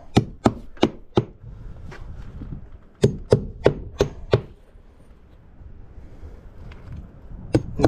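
Hammer driving nails through the nailing slots of vinyl board and batten siding into the plywood wall: four quick blows, a pause of about two seconds, then five more blows, and two lighter taps near the end.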